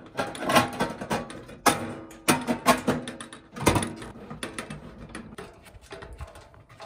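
Stainless steel pieces clanking and rattling against each other: a quick, uneven run of metallic knocks, each with a brief ring. The knocks are loudest over the first four seconds and lighter after.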